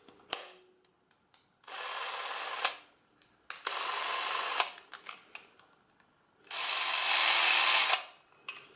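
A Braun MZ 864 Super 8 camera's electric motor running in three short bursts, about a second each, the last one longer and stepping louder partway through, with small clicks of its controls between runs.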